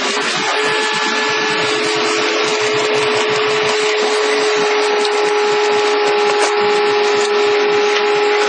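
Hydraulic excavator working a pile breaker: steady machine noise with a steady whine that sets in about half a second in and holds.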